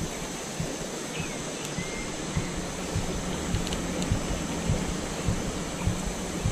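Shallow, fast-flowing river water rushing steadily, with faint irregular low knocks.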